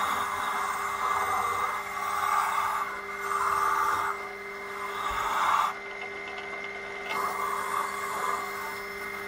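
Bench drill press motor running steadily while a wire wheel brush in its chuck scrubs against a metal bunk-frame bar. The scratching swells and fades in waves a second or two long as the bar is worked against the wheel, cleaning up the old frame for refurbishing.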